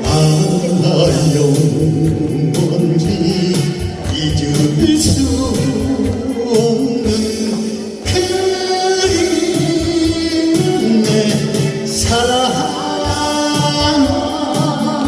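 Korean trot song: a singer's voice over steady band accompaniment.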